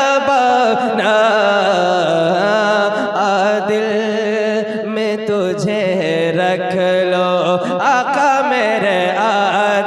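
Devotional manqabat singing: a voice drawing out long, wavering melismatic phrases over a steady low drone.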